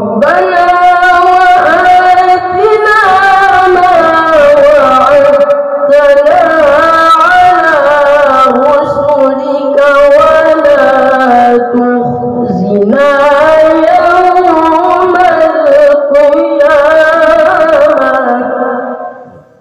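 A boy's voice chanting Quran recitation (tilawah) in the melodic murattal/mujawwad style into a microphone: long held, ornamented notes with wavering turns, one brief pause for breath about twelve seconds in, and the phrase fading away near the end.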